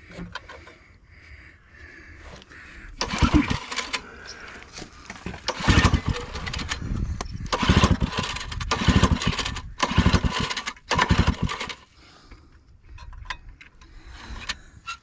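Small single-cylinder engine of a Sears generator being pull-started by its recoil starter, about six pulls, each turning it over with a quick chuffing of compression strokes. It does not catch or fire; the engine has compression but no spark at the plug.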